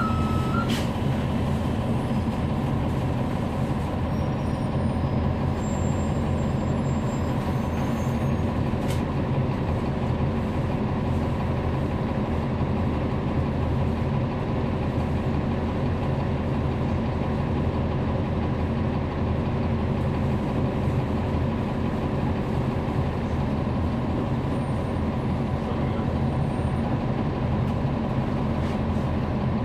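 Cummins ISL9 inline-six diesel engine of a NABI 40-SFW transit bus, heard from on board, running steadily with an even hum.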